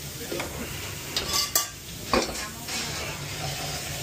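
Food frying in hot oil, a steady sizzle, with a few sharp metal clinks of pans and utensils near the middle.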